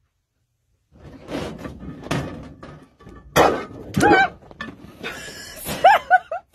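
Thuds and knocks against a ceiling light panel with scuffling. The loudest knocks come a little past halfway, and several short, high, wavering cries come near the end.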